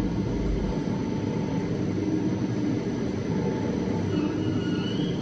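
Machinery of a biomass pellet production line running with a steady, dense rumble, with a few faint brief high whines near the end.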